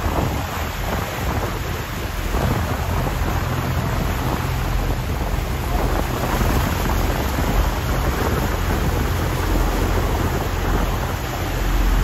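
Steady roar of Niagara Falls and the churning Niagara River below it, a continuous rushing-water noise with a deep low rumble.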